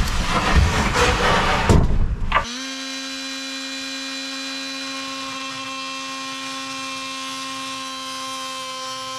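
Loud rustling and knocks for about the first two and a half seconds. Then a Ryobi rotary tool runs with a steady whine, its bit routing a notch into a teak countertop.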